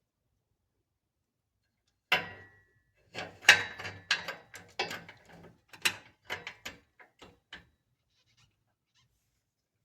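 A ratchet on an oxygen-sensor socket loosening a car's downstream oxygen sensor. A sharp metallic crack with brief ringing about two seconds in, as the sensor breaks loose from the exhaust, is followed by a rapid, uneven run of ratchet clicks for about four seconds.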